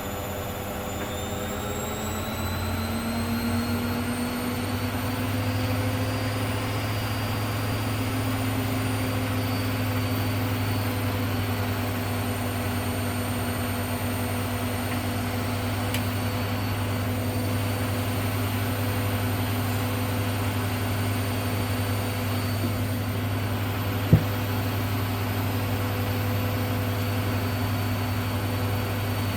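Hoover Dynamic Next washing machine spinning: the motor whine rises in pitch over the first few seconds as the drum speeds up, then runs steadily at speed with a deep hum. One sharp click late on.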